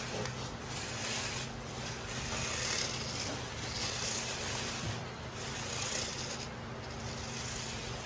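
Plastic toy car's wheels rolling and scraping on a smooth floor as it is pushed back and forth by hand, a rough rubbing hiss that swells and fades in repeated strokes.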